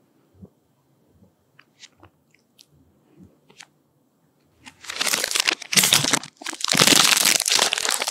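A few faint soft clicks, then, just past halfway, loud crinkling of a Magnum ice-cream bar's plastic wrapper being pulled and torn open, in several bursts with brief pauses.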